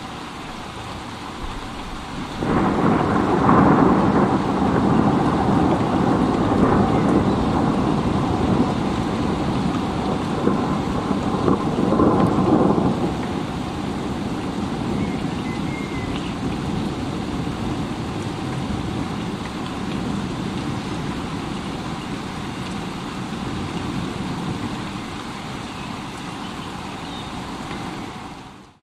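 Thunderstorm: steady rain, with a long peal of thunder that breaks suddenly about two seconds in and rumbles for about ten seconds before dying back into the rain. The sound cuts off abruptly at the very end.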